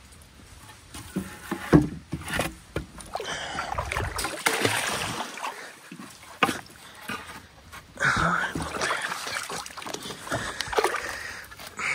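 Water splashing and sloshing, with irregular knocks and a few sharp cracks, as the wooden stakes and branches of a fish weir in a river are pulled apart by hand.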